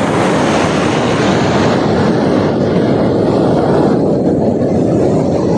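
Steady loud rushing noise with no distinct tones or strikes, thinning a little in its higher part about four seconds in.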